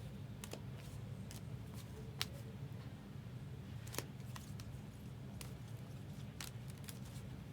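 Trading cards being handled and set out, giving scattered light clicks and taps about once a second over a steady low hum.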